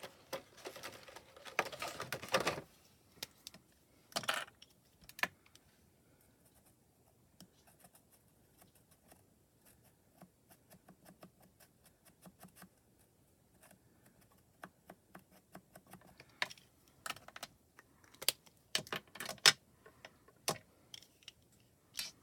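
Light clicks and taps of craft tools on a glass media mat as a marker is uncapped and dabbed to color a tiny paper buckle. The clicks come in scattered clusters, busiest in the first few seconds and again in the last few.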